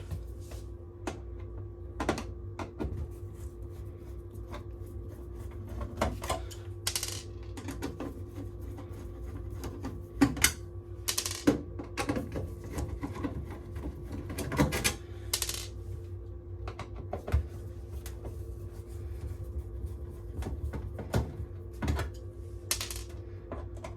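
Screws being undone by hand with a Phillips screwdriver from a tumble dryer's metal cover: irregular clicks, taps and short scrapes, a few of them louder, over a faint steady hum.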